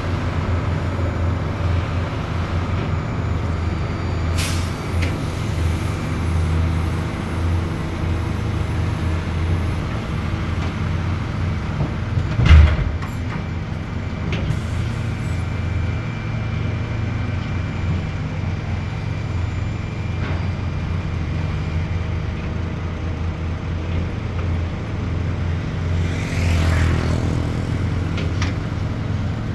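Heavy diesel engines of large excavators and dump trucks running with a steady low drone. A loud knock comes about twelve seconds in, and a brief rush of noise near the end.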